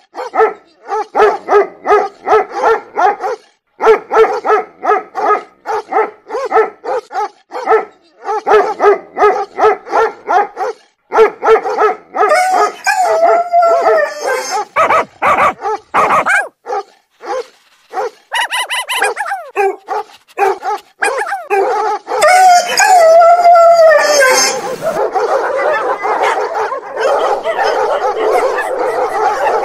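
A dog barking in rapid runs of about four or five barks a second, broken by two long howling calls that fall in pitch. Near the end it turns into a steady rough noise.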